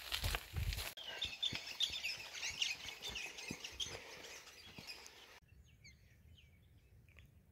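Birds chirping and twittering, many short calls close together, after about a second of low rumbling noise. About two-thirds of the way through the chirping drops to a fainter, sparser level.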